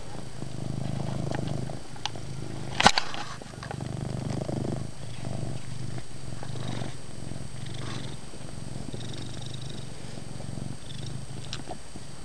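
Domestic cat purring loudly and steadily, a low continuous rumble. A single sharp click about three seconds in is the loudest moment, and the purr dips briefly right after it.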